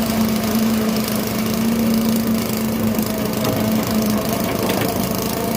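Engine of construction machinery running steadily at a constant speed, a continuous hum with a rattly mechanical noise over it.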